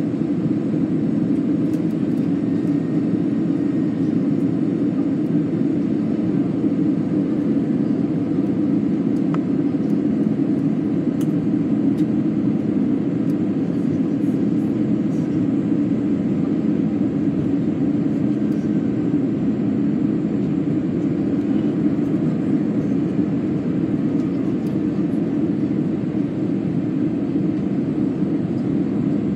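Steady cabin noise of a twin-engine jet airliner descending towards landing: the even, low rumble of the engines and the airflow past the fuselage, heard from a window seat beside the engine.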